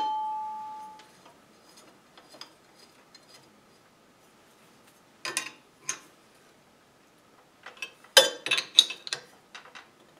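A metal ring dying away at the start, then scattered metal clicks and clanks as a carriage bolt is fitted through a steel lathe indexing wheel into the spindle's expanding arbor and its nut is tightened, with a cluster of clanks about eight seconds in.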